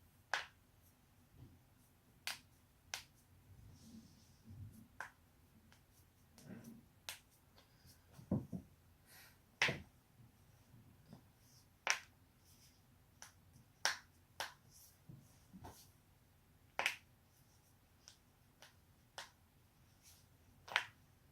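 A person's neck and back joints cracking: a series of about twenty sharp pops at irregular spacing, a few of them much louder than the rest, with soft rustling of movement between them.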